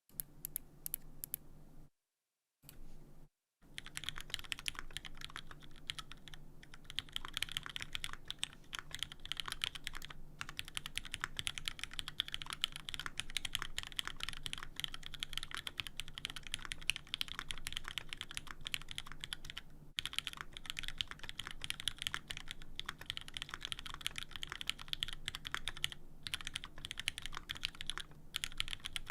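Fast typing on a custom mechanical keyboard with Cherry MX Black linear switches, GMK keycaps and an undampened full aluminium plate: a dense, continuous run of keystrokes. Two short bursts with dead silence between them come in the first few seconds, then the typing runs on without a break.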